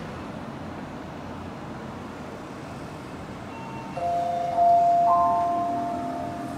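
Station arrival chime on the Bukit Panjang LRT platform: a few bell-like notes, rising and coming in one after another about four seconds in, ringing on together. It sounds over a steady background rumble and signals that a train is arriving.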